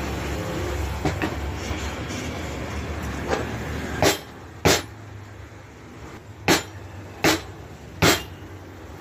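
A steady low hum, then in the second half about five sharp metallic knocks at uneven intervals, each ringing briefly. They come from a car drive shaft held upright and knocked down on a steel workbench to drive its CV joint onto the shaft splines.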